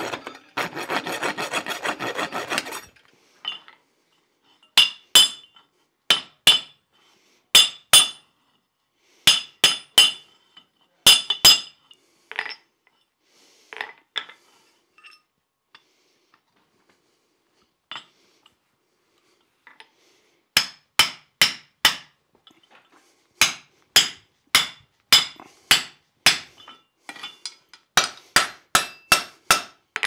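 A hot rasp scraping across a glowing steel bar for about three seconds, cleaning up a ragged punched hole. Then sharp metallic hammer blows on a hand punch held in the hot round bar over a bolster on the anvil, in runs of quick strikes with a lull in the middle.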